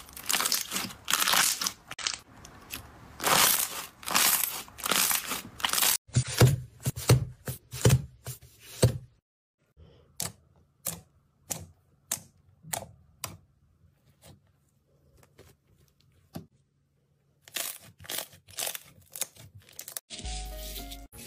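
Slime squeezed and pressed by hand: crackling, crunchy squishing at first, then a string of sharp pops and clicks as air pockets are pressed out of a thick slime, loud at first and fainter in the middle. Music comes in near the end.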